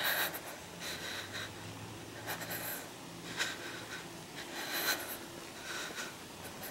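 Rustling and rubbing from a hand-held phone and clothing as the person filming walks, with irregular short scratchy scuffs.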